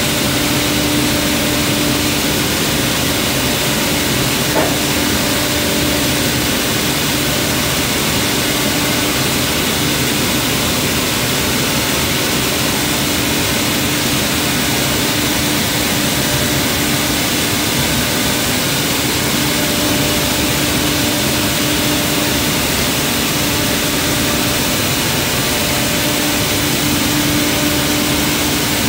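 Automated steel shotblasting and priming line running while processing steel pipe: a loud, steady hiss of machinery with a hum that fades in and out, and one small click about four and a half seconds in.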